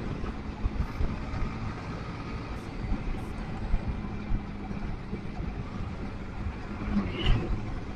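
Motorcycle engine running at a steady pitch under wind and road rumble, with irregular low knocks from riding over a rough, broken road surface. A brief sharper sound comes about seven seconds in.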